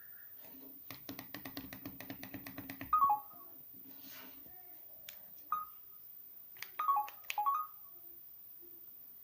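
Samsung mobile phone's interface sounds: a fast run of ticks lasting about two seconds, then short electronic blips, one about three seconds in, another in the middle and a quick cluster of them near the end.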